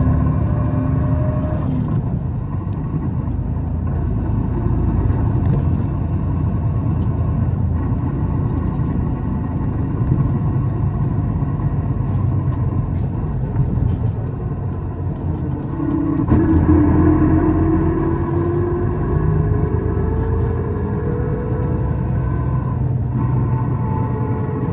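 Isuzu Erga diesel city bus heard from inside while under way: a steady engine and road rumble. About two-thirds of the way through, a whine comes in and climbs steadily in pitch as the bus gathers speed.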